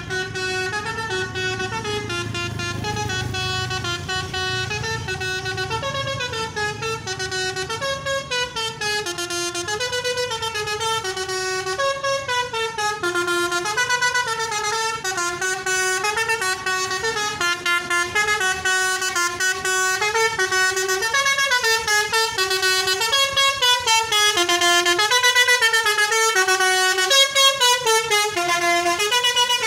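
Basuri multi-tone 'telolet' horn playing a long tune of stepped notes, a few notes a second, a little louder toward the end.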